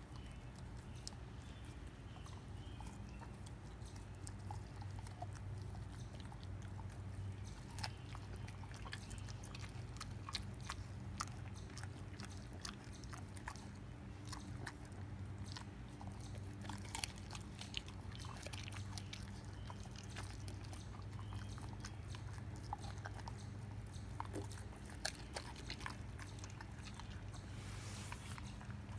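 German Shepherd chewing and gnawing a raw beef rib, with irregular sharp crunches and clicks of teeth on bone. A steady low hum runs underneath.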